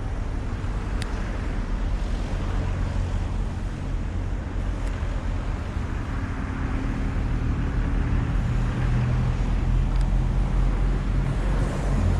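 Street traffic: motor vehicles running nearby with a steady low engine hum that grows a little louder over the last few seconds. A single sharp click about a second in.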